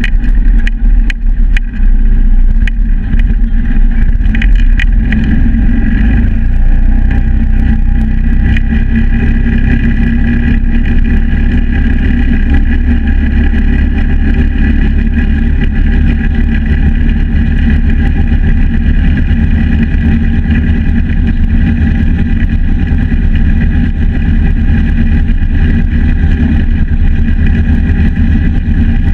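Yamaha G9 gas golf cart with a big-block engine conversion running steadily under way at cruising speed, a loud, even engine drone with deep rumble. Scattered sharp clicks in the first several seconds.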